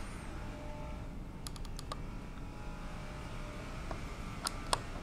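Small metal-on-metal clicks of a thin crescent wrench being worked onto a tightly fitting nut on a 1920s Monroe mechanical calculator. There is a quick run of light ticks about a second and a half in and two sharper clicks near the end.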